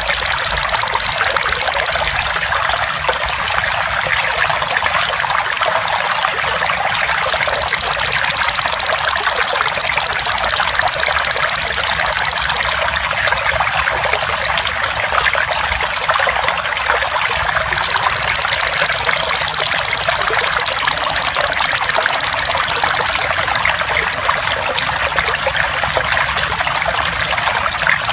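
Water trickling steadily, with the high, rapidly pulsed buzzing trill of a belalang emas (golden grasshopper) that comes and goes, about five seconds on and five seconds off. The trill is the loudest sound whenever it sounds.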